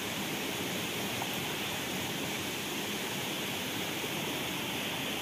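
Steady rushing of a rocky stream flowing over boulders, an even hiss with no breaks.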